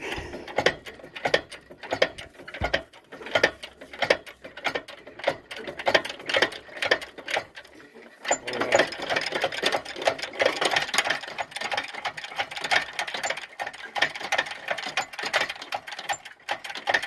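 Homemade crane's hand-pumped hydraulic cylinder being worked to raise a load: repeated metallic clicking and clanking, busier from about halfway through.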